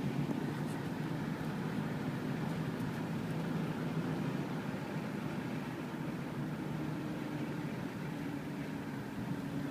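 Car engine and road noise heard from inside the cabin as the car drives slowly, a steady low hum with a faint steady tone joining about six seconds in.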